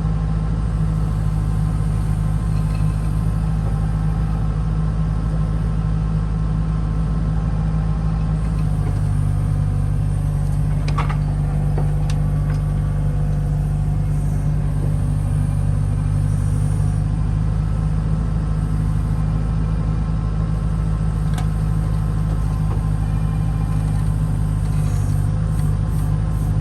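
Excavator's diesel engine running steadily, its low note shifting slightly about eight seconds in, with a faint knock a little later.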